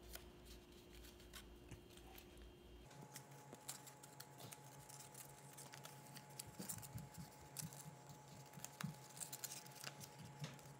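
Faint rustling and light clicks of a printed paper kaleidocycle strip being folded and creased by hand, with a faint steady hum behind that shifts about three seconds in.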